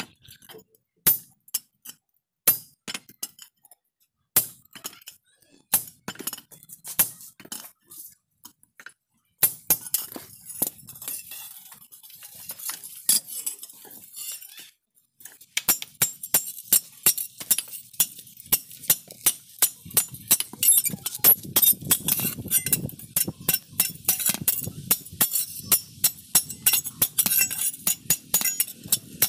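Hand hammer striking a steel spade blade and its socket on a steel anvil block, each blow a sharp ringing clink. The blows come singly and spaced apart at first, then turn into a fast, steady run of strikes from about halfway.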